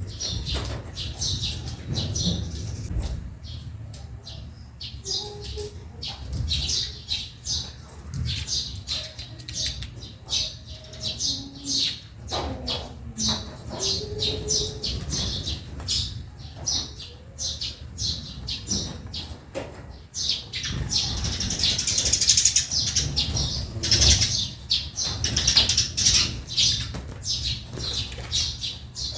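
Eurasian tree sparrows chirping: many short, high chirps in quick succession, busiest and loudest about two-thirds of the way through.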